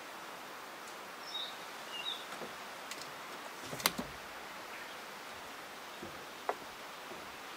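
Steady outdoor background hiss with a few short bird chirps in the first couple of seconds. About four seconds in, a sharp click as a tape measure is set down on the wooden workbench, then a lighter tap a couple of seconds later.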